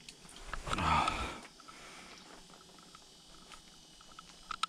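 A man's short breathy grunt, then faint irregular clicks. There is a slightly louder click near the end.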